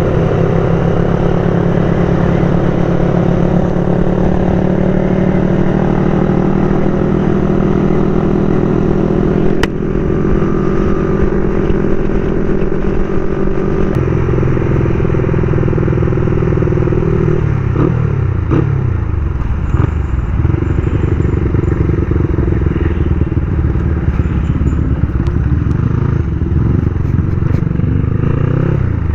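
Motorcycle engine running under way, heard from the rider's camera. Its pitch holds steady, shifts about halfway through, then dips and climbs again as the bike eases off and speeds back up.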